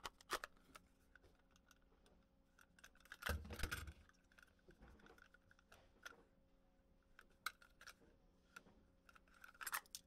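Faint, sparse clicks and rattles of steel handcuffs being handled in a molded Kydex carrier, seated and drawn out, with one louder clatter and low thump about three and a half seconds in.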